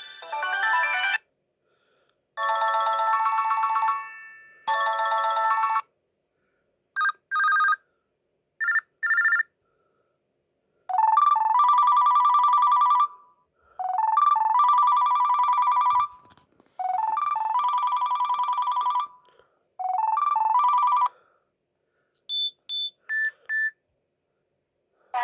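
LG T370 mobile phone's built-in ringtones and alert tones, played one after another: short electronic melodies and beeps with silent pauses between them. Near the end comes a set of four quick beeps.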